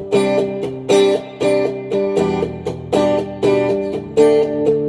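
Taylor T5z hybrid guitar strummed in a steady rhythm through a small amp, with chords struck about twice a second.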